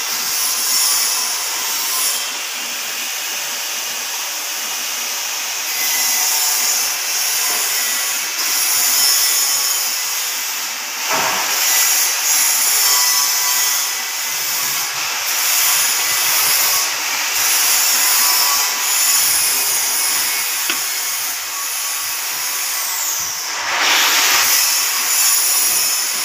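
Metal lathe turning a metal part while a cutting tool takes a cut: a steady machining hiss with a faint high whine. Near the end a high tone slides down and a short, louder rush of noise follows.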